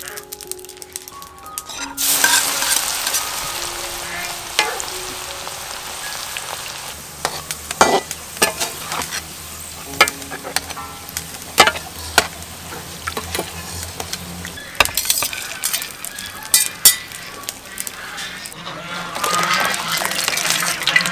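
Chopped garlic sizzling as it fries in hot oil in a wok, with sharp clicks of a metal strainer knocking and scraping against the wok as it is stirred.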